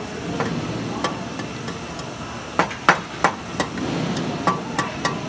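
Irregular sharp knocks and clinks of metal striking metal, about nine over five seconds, some with a short ring, the loudest two near the middle, over a steady workshop background noise.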